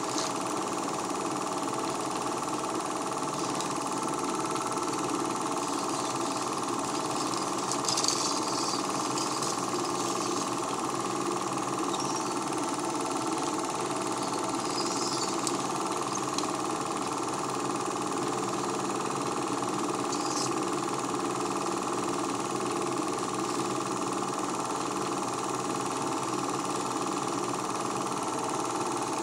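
Home-movie film projector running with a steady mechanical whir and hum. A few faint crackles come about eight, fifteen and twenty seconds in.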